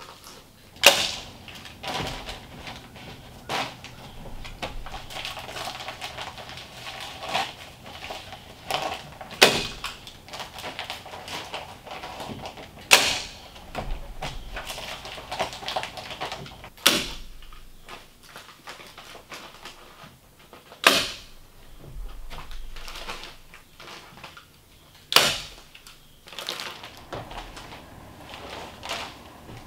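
A hand staple gun fastening the paper facing of fiberglass insulation batts to floor joists, one sharp clack every few seconds, with the papery rustle of the batts being handled in between.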